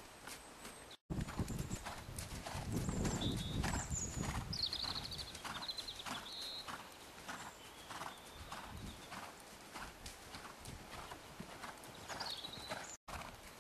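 Hoofbeats of a ridden grey mare on a soft arena surface, a steady rhythm of about two a second. A heavier low rumble runs through the first few seconds, and the sound drops out briefly twice.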